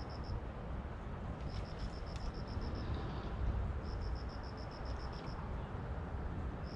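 An insect calling in repeated bursts of rapid high ticks, about seven a second, each burst lasting a second or so, over a steady low outdoor rumble and hiss.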